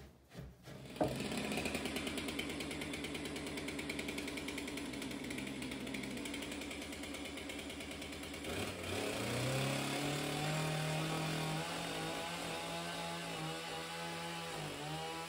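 Stihl two-stroke chainsaw idling with an even, pulsing beat, then revving up about nine seconds in and holding at a high, steady speed.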